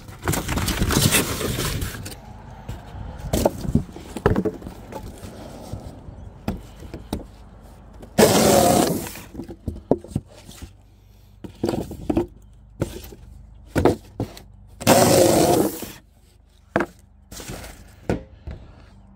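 Sturdy interlocking wooden pieces being handled, knocked and pulled at by hand: irregular sharp knocks and scrapes, with a loud noisy stretch at the start and two loud bursts of about a second each, one near the middle and one about three-quarters through.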